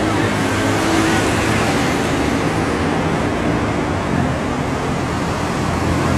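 Steady rush of road traffic, with cars driving past on the street.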